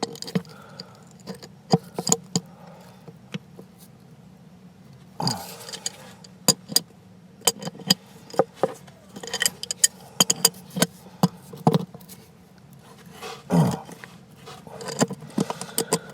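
Metal clicks and clanks of an adjustable wrench working the water meter's shut-off valve, scattered irregularly, with two short strained grunts, one about five seconds in and one near the end.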